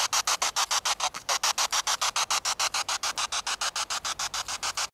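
Spirit box sweeping through radio stations: a rapid, even pulsing of radio static, about ten bursts a second. It cuts off suddenly at the end.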